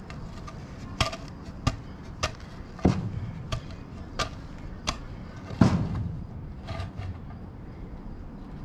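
A wooden board knocking down into gravel: a run of sharp knocks about every two-thirds of a second, then one heavier thud and a last lighter knock, as its end is jabbed in to dig out a spot for it to sit.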